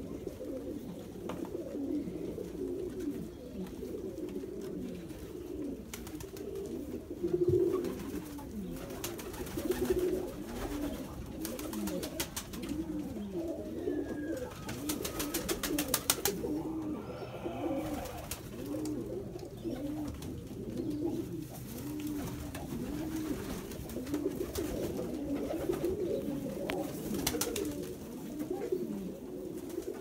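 A flock of domestic pigeons cooing, many low overlapping coos running on without a break. Brief runs of rapid clicking or clattering come through about halfway and again near the end.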